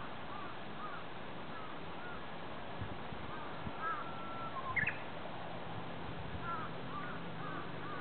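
Small songbirds singing: repeated short, arched chirps, with one longer steady whistle a little past the middle followed by a quick rising note.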